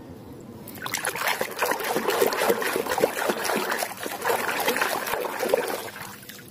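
Water splashing and sloshing as a hand swishes a toy elephant through a tub of muddy water. It starts about a second in, goes on as a steady run of small splashes and fades near the end.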